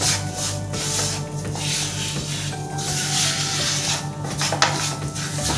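Spatula scraping and stirring a thick ghee-and-flour sweet mixture around a nonstick pan in quick rhythmic strokes, about two to three a second, with one longer continuous scrape around three seconds in. Background music plays underneath.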